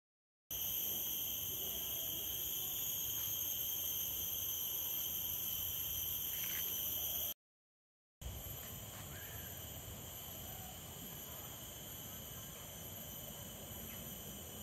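Steady chorus of tropical insects, several high-pitched buzzing tones held without a break, over a soft outdoor background. It drops out to dead silence twice, at the start and about halfway.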